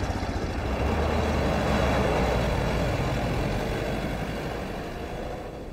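An open military jeep's engine running as it drives off, the sound fading steadily as it moves away.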